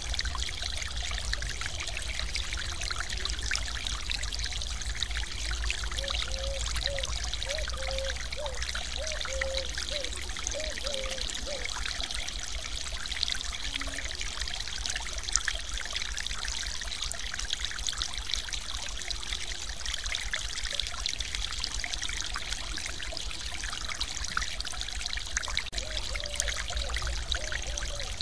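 Water pouring over a small concrete weir in a stream, a steady splashing rush with no breaks.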